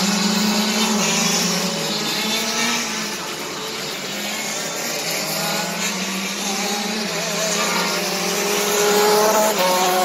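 Several racing kart engines running together at different pitches as karts circulate on the track. Near the end one kart's engine note rises as it accelerates.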